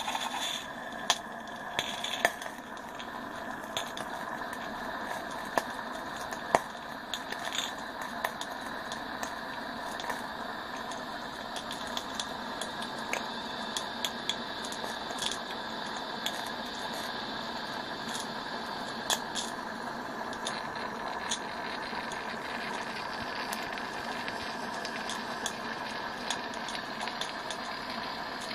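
Accucraft Ruby live-steam model locomotive standing under steam: a steady hiss, with scattered sharp clicks and crackles, the loudest a second, two seconds and six and a half seconds in.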